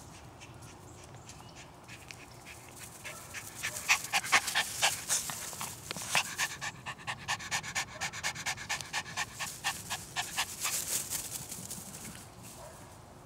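Toy rat terrier panting quickly and rhythmically, out of breath from running after a ball; the panting starts about four seconds in and stops near the end.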